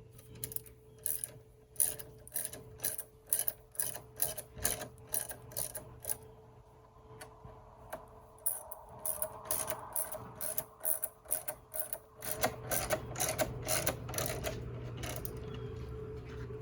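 Hand ratchet clicking in quick, even runs of about three clicks a second as headlight mounting screws are driven in, with a pause of a couple of seconds around the middle.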